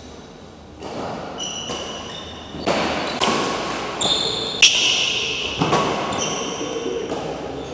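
Badminton rally: several sharp racket strikes on the shuttlecock echoing in a large hall with metal walls, the loudest about halfway through, mixed with short high squeaks of shoes on the synthetic court mat.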